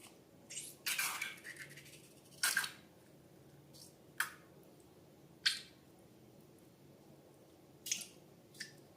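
Slime being squeezed and handled: a series of about seven short, wet crackles and pops at irregular intervals, the longest about a second in.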